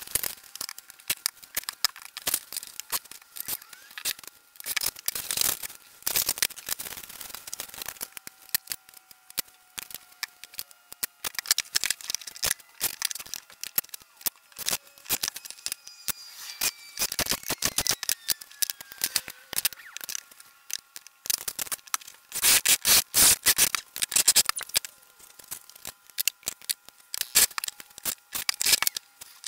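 Steel octagonal electrical boxes and sheet metal being handled and fastened on a workbench: many sharp metallic clicks and clatters, with a cordless drill running in short bursts, the loudest stretch a little past two-thirds through.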